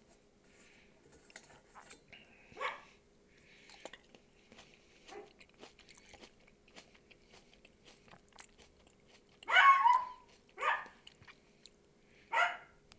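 Chewing heard close up at the mouth: soft wet smacks and small clicks of lips and teeth. Four short, louder pitched sounds break in, one early and three in the last few seconds, the loudest about ten seconds in.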